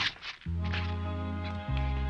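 Background music from the cartoon's score starts about half a second in: held low bass notes under sustained chords, shifting to a new note shortly before the end, with regular short ticks over them.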